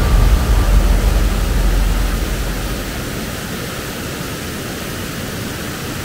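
Rushing water, a loud steady hiss, with a heavy low rumble in the first couple of seconds that then eases.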